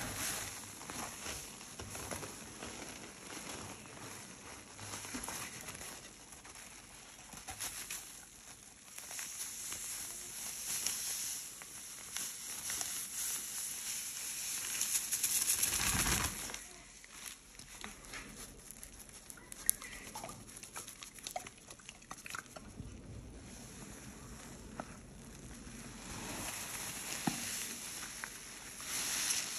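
Dry powdered cleanser and blue-speckled laundry detergent powder poured in a stream onto wet cleaning paste, a soft hiss that builds up and ends in a thump about halfway through. Near the end, a gloved hand squishes and mashes the wet, powdery paste.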